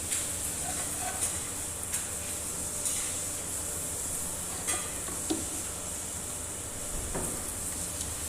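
Food sizzling steadily in hot oil on a griddle, with a few sharp metal clinks of a spatula on the pan.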